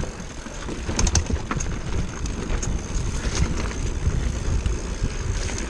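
Orbea Laufey hardtail mountain bike rolling over a rocky dirt singletrack: a steady low rumble of tyres and wind on the mic, with scattered sharp clicks and knocks as the bike rattles over stones.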